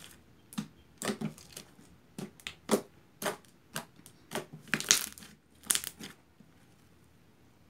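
Fluffy shaving-cream slime being kneaded and squeezed by hand, giving off irregular squishy crackles and pops; they stop a little past six seconds in.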